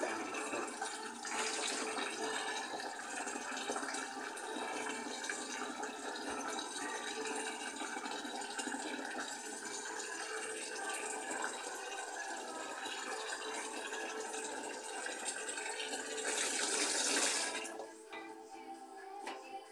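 Kitchen tap running water into the sink, a steady rush that swells briefly and then stops abruptly near the end as the tap is turned off. Music plays faintly underneath.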